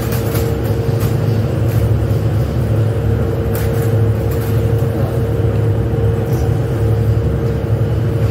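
Steady, loud drone of factory machinery: a low hum with a constant mid-pitched tone held through it, and a few light clicks and rustles now and then.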